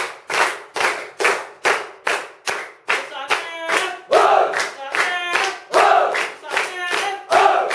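A small group of people clapping in unison in a steady rhythm, about two claps a second. From about three seconds in, their voices join in, chanting together in time with the claps.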